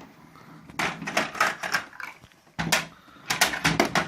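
Irregular clicks and knocks of small plastic toys being handled and set down, some single, some in quick runs of several taps.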